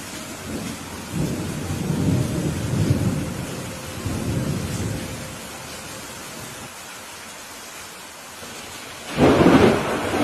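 Steady rain hiss, with a rolling rumble of thunder from about one to five seconds in and a sharper, louder thunderclap near the end.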